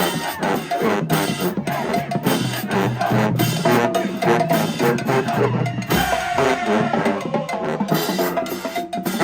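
Drum-led music: drums and percussion playing a busy, steady rhythm, with pitched tones underneath.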